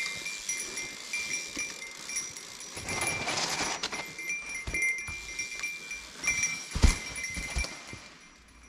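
Mountain bike disc brakes squealing in short, high-pitched, steady-pitched bursts that switch on and off as the brakes are dragged down a rocky descent, over tyre and trail rumble, with a loud knock about seven seconds in.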